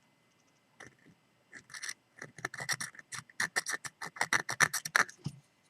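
Hand file rasped in quick short strokes across a steel padlock shackle, speeding up to about five strokes a second: a file test for case hardening, and the file bites and scratches the shackle.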